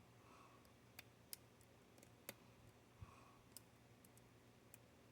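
Faint, sparse clicks of a hook pick and tension tool working the pins inside a Paclock 90A-Pro padlock, about six separate clicks at irregular intervals.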